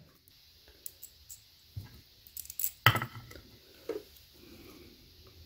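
Light metallic clicks and clinks of a hex key and small steel bolts being worked loose from the shifter housing of a Tremec TKO 600 transmission, coming irregularly with the loudest clink about three seconds in.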